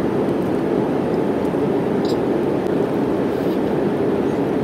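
Steady cabin noise of a jet airliner in flight, heard from inside the cabin: an even, unchanging low rush of engines and airflow.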